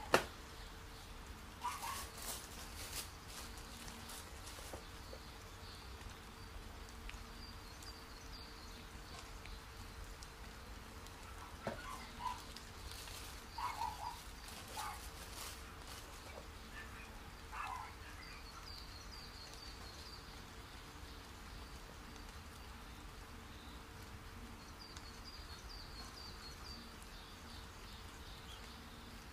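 Faint rustling of tissue paper and handling of a cardboard shoe box, in scattered soft crinkles and taps. Short runs of faint high-pitched chirps come and go in the background.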